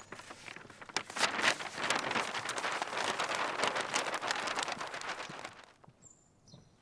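Dense, fast clatter of several horses' hooves going past, swelling about a second in and fading out near the end.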